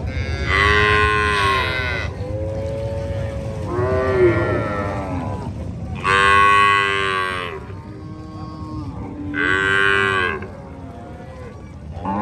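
Cattle mooing: about five long, drawn-out calls in turn, over a steady low rumble.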